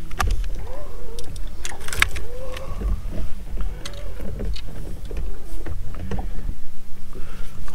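Handling noise of a largemouth bass being clipped onto a hand scale and weighed on a boat deck: scattered clicks and knocks over a low rumble.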